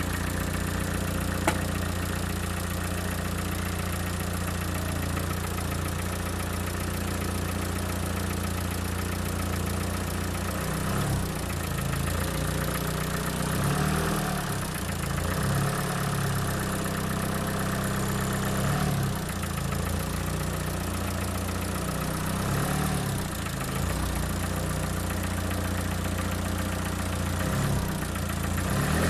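Peugeot 206 engine idling, with a noise its owner finds strange. From about ten seconds in the engine speed rises and falls slightly several times, and there is one sharp click about a second and a half in.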